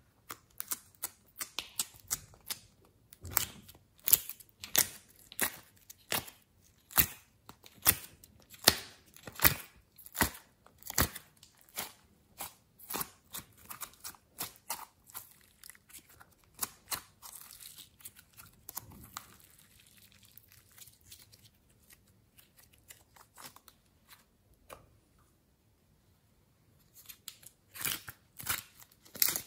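Glossy slime being poked, pressed and squeezed by fingers, giving a run of sharp clicking pops, about one or two a second. The pops thin out past the middle and pick up again near the end.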